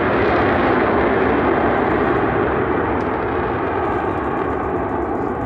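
Jet noise from a formation of Northrop F-5E Tiger II jets flying away: a broad, steady roar that slowly fades.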